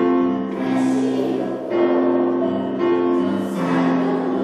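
A group of children singing a song together, in phrases of held notes with short breaks between them.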